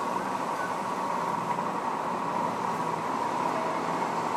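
Steady, even outdoor background noise with a constant hum, no single event standing out.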